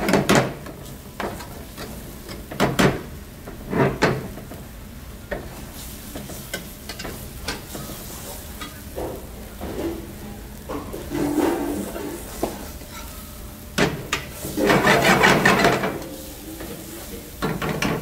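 Metal spoon scraping and stirring diced onion and garlic around a large nonstick frying pan over a light sizzle of oil. The scrapes come as short strokes, with two about three and four seconds in and a longer spell of stirring lasting about two seconds past the middle.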